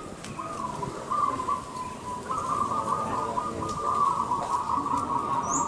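Zebra dove (perkutut) singing its rapid, rolling coo, the notes starting in short phrases and running together almost unbroken from about two seconds in.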